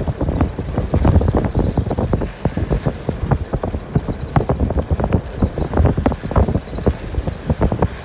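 Car driving on a rough, wet dirt road, heard from inside: a low rumble with irregular knocks and thumps, several a second, as the car jolts over the uneven surface.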